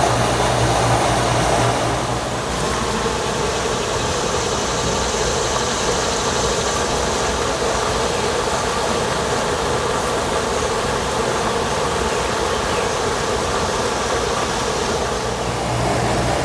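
Steady mechanical hum like an idling engine or motor. A low tone in it fades about two seconds in and returns near the end.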